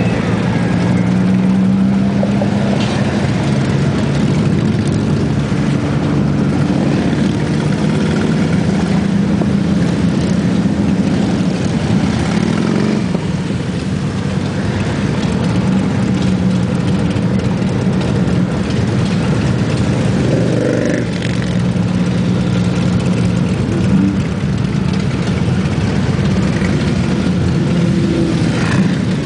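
Motorcycle engines running in slow group traffic: a steady low engine hum from the camera bike and the bikes around it, rising and falling in pitch a couple of times as the pace changes.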